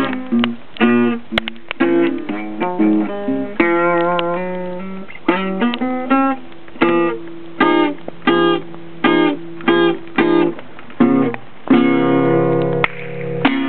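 Acoustic guitar playing the closing bars of a blues song: picked notes and strummed chords in a steady rhythm, ending on a held chord near the end.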